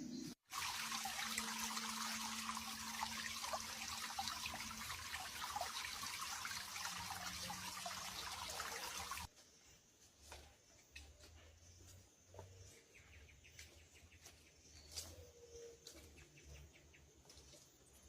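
Steady hiss of rushing water for about nine seconds, cutting off abruptly. A much quieter outdoor background with faint ticks follows.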